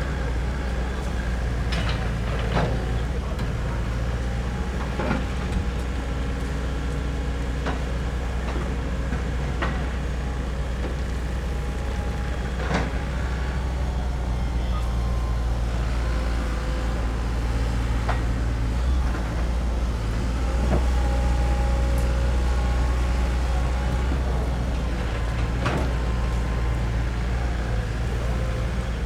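Doosan DX140LCR-5 short-radius excavator's diesel engine running steadily under work, a little louder about two-thirds of the way through, with sharp metallic knocks every couple of seconds.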